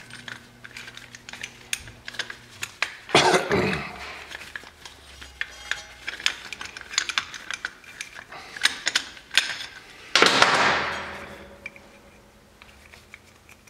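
Metal hand tools clinking and ticking against an ATV's front brake caliper as the C-clamp used to push the piston in is worked loose. There are many short clicks, and a burst of hiss about ten seconds in that fades away.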